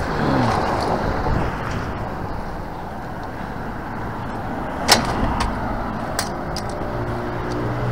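Steady road traffic, with a vehicle passing at the start, its pitch falling. About five seconds in, a sharp metal clack as a rusty wire shopping-cart section is set down on the concrete sidewalk, and a steady engine hum rises near the end.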